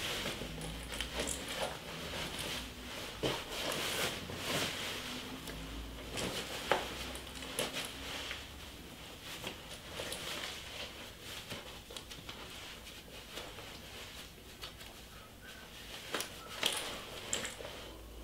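Denim jacket rustling as it is put on and handled, with a few small sharp clicks, over a low steady room hum.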